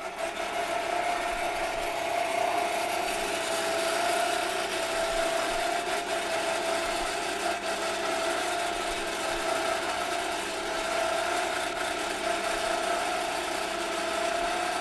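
Electric motor of a rail-mounted boat cart on a marine railway running steadily with a constant whine, hauling the cart and boat along the rails.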